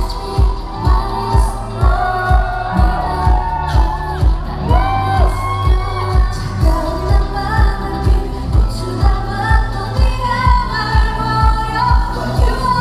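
K-pop dance track with female group vocals, played loud through a concert hall's sound system, over a steady kick drum about twice a second.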